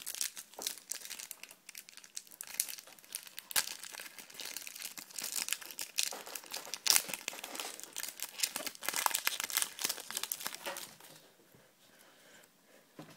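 Foil wrapper of a Topps Match Attax trading-card pack being crinkled and torn open by hand, a dense crackling that dies down near the end as the cards come out.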